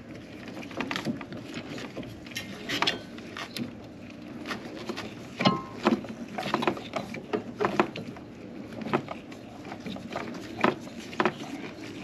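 Irregular knocks, taps and scrapes of a refrigerator's old sealed compressor being handled and worked loose from its mounting, its refrigerant lines already cut.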